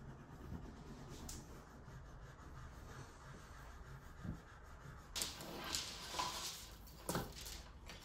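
Faint rustling of fabric as cushions and a woven throw are handled on a sofa, with a few louder swishes in the last three seconds.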